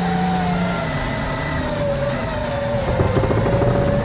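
Off-road Toyota 4x4 being winched up a muddy bank: a high whine slowly falls in pitch over a steady engine hum, and a short rattling clatter comes about three seconds in.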